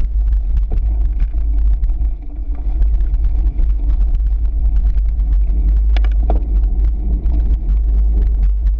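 Cyclocross bike riding a bumpy dirt track, heard from a handlebar-mounted GoPro: a loud, steady low rumble of wind and vibration with constant clicks and rattles from the bike and mount. A short squeal about six seconds in.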